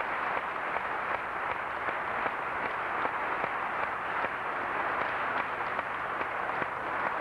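Audience applause: many hands clapping at once in a dense, even patter.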